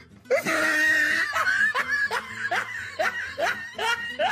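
A person laughing in a quick run of short bursts that rise in pitch, about two or three a second.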